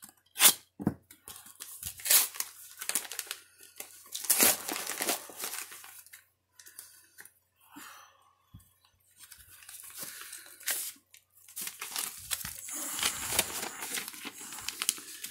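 Paper envelopes and mailers being handled and torn open by hand: irregular tearing, rustling and crinkling, with a sharp click about half a second in.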